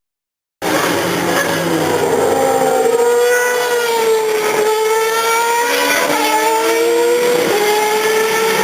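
Formula racing car engine running at high revs. It starts about half a second in, and its pitch wanders up and down, with a few sharp changes that sound like gear shifts.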